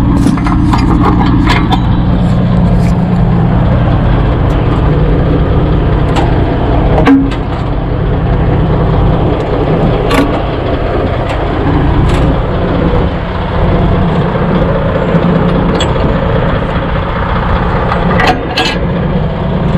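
Semi truck's diesel engine idling steadily, with scattered sharp clicks and knocks over it.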